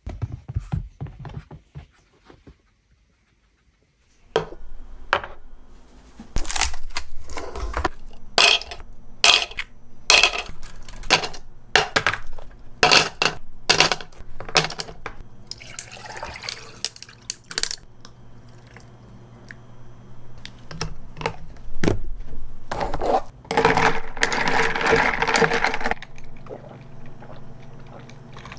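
Ice cubes dropped one by one into a glass tumbler, clinking sharply. Then liquid is poured over the ice, the longer pour about three quarters of the way through.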